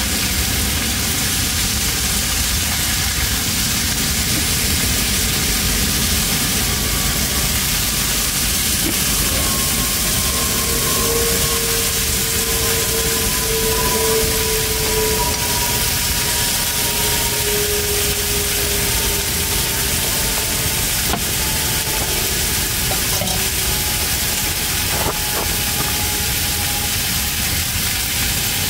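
Salmon frying: a steady sizzle and hiss.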